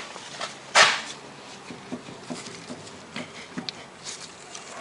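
A Renault Clio's front wheel and steering being rocked by hand, giving scattered light knocks and clicks from play in a worn inner tie rod (axial joint). There is one louder scrape about a second in.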